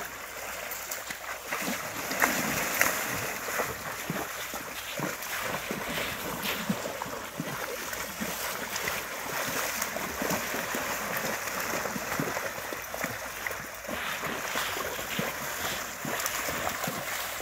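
Irregular splashing of horse hooves, a dog and a person's feet wading through shallow river water, over a steady rush of water noise.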